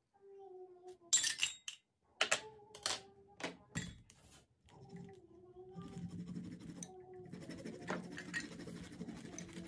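A few sharp clinks and knocks of kitchen utensils, then, from about halfway through, a steady rasping as fresh ginger root is grated on a grater.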